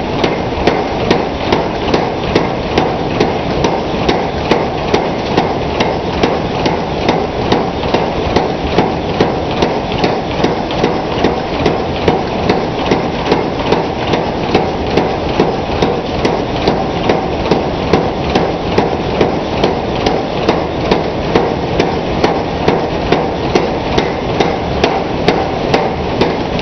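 A 100-pound Hackney power hammer striking a hot iron bar in a steady rhythm of about two blows a second, drawing out and smoothing a taper, over the machine's steady running noise. The blows stop right at the end.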